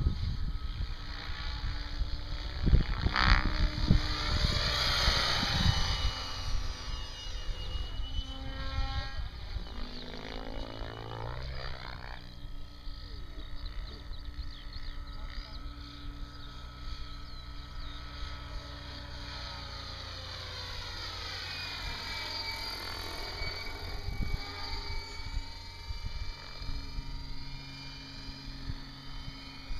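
Electric radio-controlled helicopter, a Mikado Logo 600 SE, flying aerobatics overhead: the whine of its rotors and motor glides up and down in pitch as it swoops and passes. Wind rumbles on the microphone, most strongly in the first few seconds.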